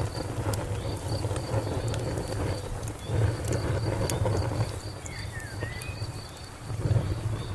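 Wood fire crackling, with a steady low rumble and scattered sharp pops, while a cricket chirps in a steady, regular pulse. A short gliding call sounds about five seconds in.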